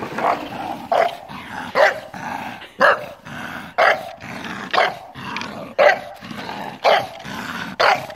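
Bulldog barking in short, even calls about once a second.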